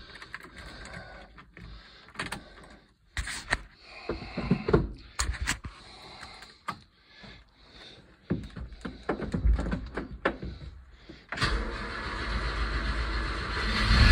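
1995 Subaru Sambar's 658 cc EN07 four-cylinder engine starting for the first time after its oil change and oil pan gasket job: after scattered clicks, the starter cranks and the engine catches about eleven seconds in, then runs steadily and gets louder near the end.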